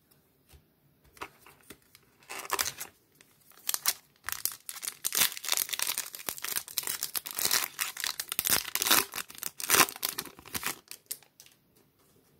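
Foil wrapper of a Topps Mini baseball card pack being torn open and crinkled by hand. The crackling starts about two seconds in, comes in quick irregular bursts, is densest through the middle and stops shortly before the end.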